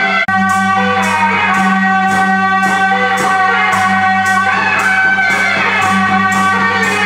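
Background music with guitar, held notes over a steady beat, which cuts out for an instant just after the start.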